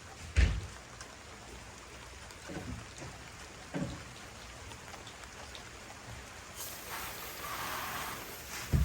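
Light rain falling steadily, with a rise in hiss near the end. A few dull thumps come through it, the loudest about half a second in and another near the end.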